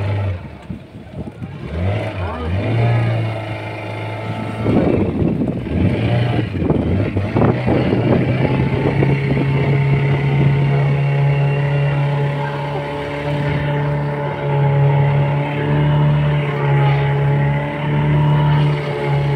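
A tour boat's engine running steadily as the boat cruises. Its pitch rises slightly in the first seconds and again about 8 seconds in, then holds. A rough rushing noise, likely wind or water, runs over it in the middle seconds.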